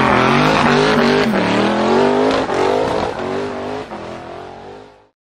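Supercar engine revving hard during a burnout, with the hiss and screech of spinning tyres; the engine note drops briefly about a second in, climbs again, then fades out near the end.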